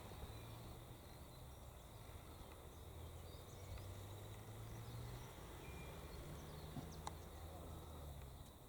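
Faint outdoor background: a low steady hum and a faint steady high-pitched insect drone, with a faint click about seven seconds in.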